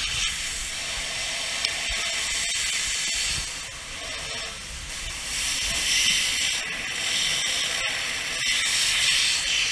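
Fire hose water stream hissing with steam on burning recyclable rubbish, a steady hiss that swells and eases in waves every few seconds.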